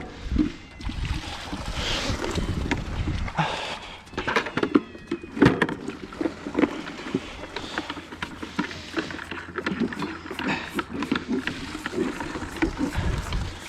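Calves sucking milk from teat buckets at their pens, with irregular knocks and clatter of the buckets over a steady low rumble.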